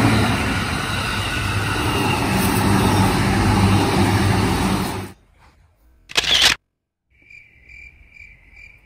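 Electric commuter train running past close by, a loud steady rush with a low hum, which cuts off abruptly about five seconds in. A short loud burst of noise follows, then a faint high chirping, about three chirps a second, near the end.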